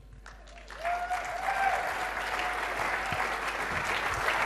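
Audience applauding, starting suddenly about a second in and keeping up steadily, with one held whoop from the crowd as it begins.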